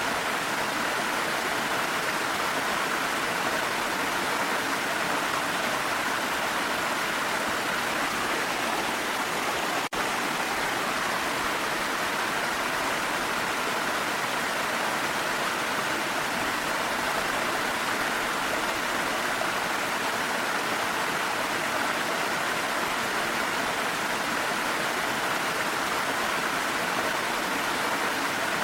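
Steady rushing water of a waterfall, an even unbroken hiss, with a brief dropout about ten seconds in.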